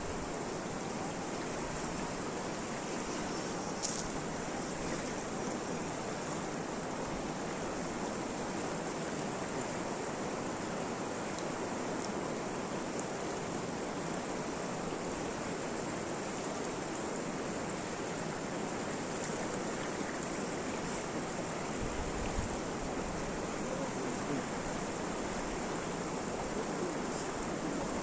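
Steady rushing of water, even in level throughout, with a few faint ticks.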